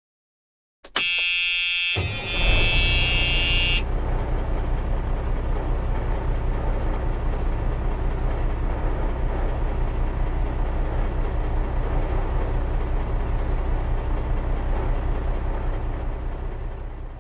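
A vehicle horn sounds for about three seconds, and partway through it a large engine starts up; the engine then keeps running with a steady low rumble that pulses regularly, and it fades out at the end.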